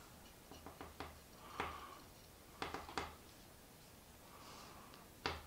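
Quiet handling noise of a fixed-blade knife with a rubberised grip being turned over in the hands: soft rubs and scattered small clicks, with one sharper click near the end.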